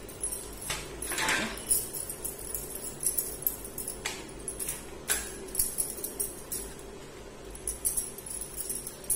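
A string of light, metallic jingling clinks at irregular intervals, made while oiled hands shape peda dough into balls.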